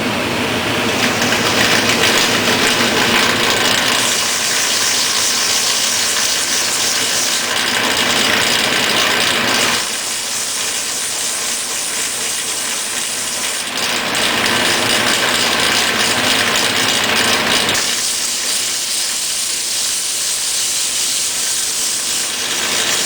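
Sandpaper on a block rubbing along a wooden baseball bat during block sanding, a steady hiss that grows louder and softer in long stretches as the strokes change.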